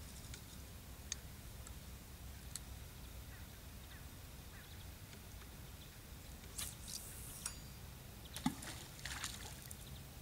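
Feeder rod being cast: a brief swish of rod and line running off the reel about two-thirds of the way through, then about two seconds later a short plop as the feeder lands in the river, with a few small reel clicks scattered around it.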